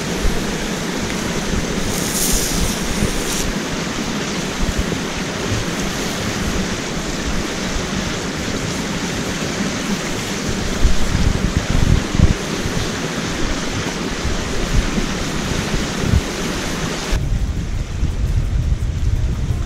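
Steady rush of a small mountain stream close to the microphone, with low wind buffeting on the mic from about halfway through. Near the end the sound changes abruptly, losing its high hiss and turning deeper.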